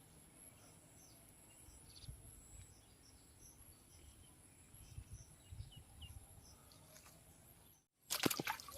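Faint outdoor ambience: a steady high-pitched drone of crickets and insects with scattered faint chirps. Near the end the sound cuts out for a moment, then a sudden burst of loud splashing and clicks begins.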